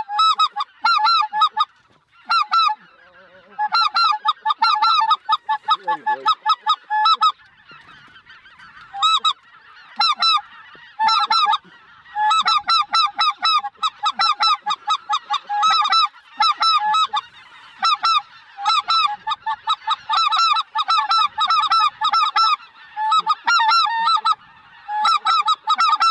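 A large flock of snow geese calling in flight: a dense chorus of short, high, yelping honks, with a few brief lulls.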